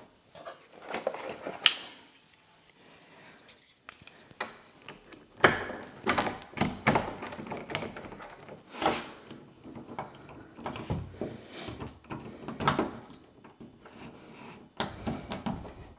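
Metal door-knob and latch hardware being fitted into a wooden door: irregular clicks, taps and knocks of the parts being handled and pushed into place.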